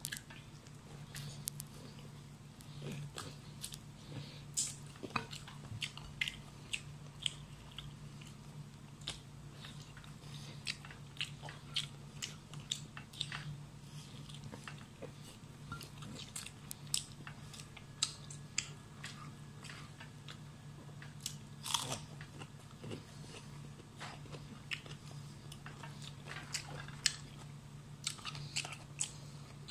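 Close-up eating sounds: a person biting and chewing fried chicken eaten by hand, with many sharp wet clicks and crunches scattered irregularly, over a steady low hum.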